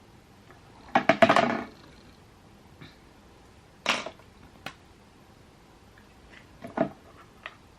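Small handling noises of objects being picked up and set down: a quick rattle of several clicks about a second in, a single sharp knock near the middle, and a couple of lighter clicks near the end.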